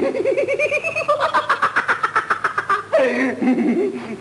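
A man laughing in a rapid run of short repeated pulses that jump higher in pitch about a second in and break off about three seconds in, followed by more voicing.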